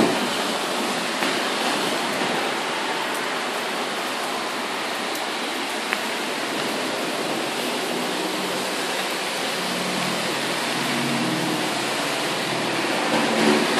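Heavy rain pouring down steadily in a thunderstorm, an even hiss, with a faint low drone coming in toward the end.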